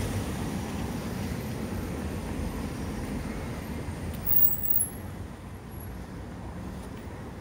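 Road traffic: a car running along the street with a steady low rumble of engine and tyres, easing off a little past the middle. A short knock about two-thirds of the way through.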